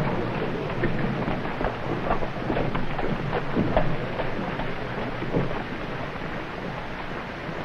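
Hoofbeats of several horses cantering on a dirt street, a dense clatter over a low rumble, thinning and getting quieter as the horses slow and pull up.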